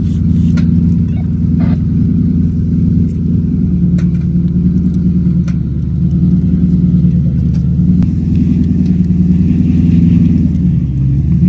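Lifted first-generation Porsche Cayenne's engine running at low revs as it crawls over slickrock, a steady deep rumble that swells and eases slightly, with a few sharp clicks now and then.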